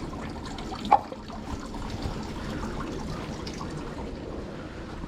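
Water trickling and pouring at a shrine's hand-washing basin as hands are rinsed for purification. A single sharp knock comes about a second in.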